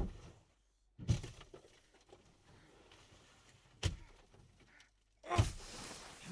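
Several muffled thuds, with faint rustling between them: one at the start, one about a second in, one near four seconds and a longer one near the end, which has a short wavering pitched edge.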